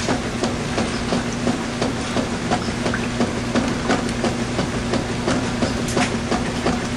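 Washing machine running a wash cycle on a load of towels: a steady motor hum under a fast, irregular clatter of small knocks and clicks from the tumbling load.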